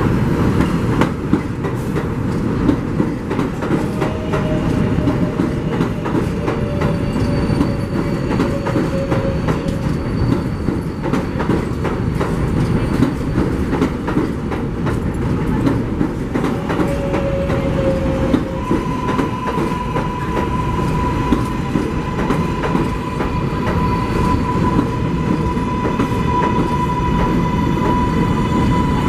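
New York City subway train running along the elevated structure, wheels clacking over rail joints. Steady whining tones ride over it, and a higher, clearer squeal or whine sets in about two-thirds of the way in and holds.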